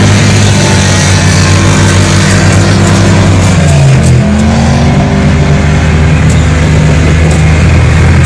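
Off-road truck engine running at high revs through mud, its pitch dipping and climbing back up about four seconds in.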